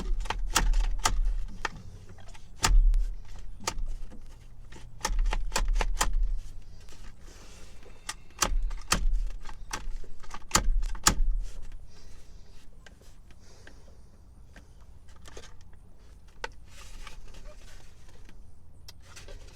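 Seatbelt retractor and its metal latch plate clicking and rattling as the belt webbing is tugged and fed back, in clusters of sharp clicks with low thumps, then fainter handling noise after about twelve seconds. The retractor is sticking and won't rewind the belt freely.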